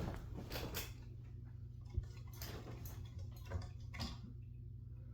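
A few scattered light clicks and taps from screwdriver work on a ceiling fan blade's mounting screws, one sharper tap about two seconds in, over a steady low hum.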